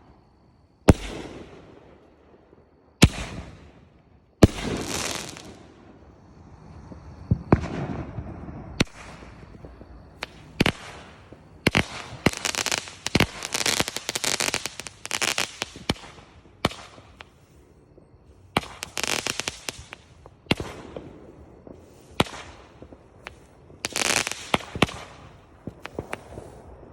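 Aerial fireworks going off: a few sharp bangs of bursting shells early on, each trailing off, then long runs of dense crackling bursts in the middle and near the end.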